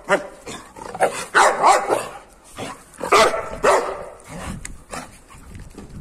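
Dogs barking in a string of short, harsh barks, the loudest about one and a half and three seconds in.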